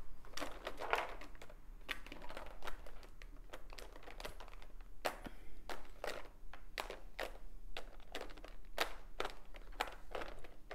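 Small clear plastic storage containers clicking and knocking against each other and against a plastic tray as they are pushed and shuffled into rows, in irregular sharp clicks.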